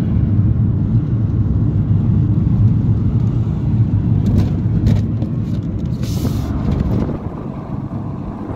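Steady low rumble of engine and road noise heard inside a vehicle travelling at highway speed, easing slightly near the end, with a brief hiss about six seconds in.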